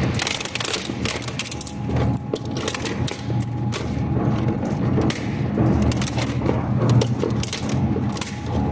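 Twin-shaft plastic shredder's hooked blades biting into a rigid plastic bucket: repeated sharp cracks and snaps as the plastic splits, over the steady low hum of the drive.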